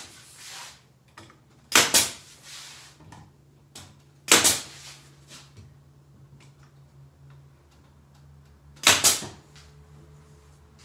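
Pneumatic nail gun firing three times, a few seconds apart, driving small nails to tack a glued plywood panel in place. Each shot is a sharp crack with a brief tail after it.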